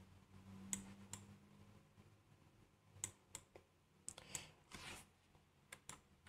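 Near silence with a scattered handful of faint computer mouse clicks at irregular intervals, under a faint low hum.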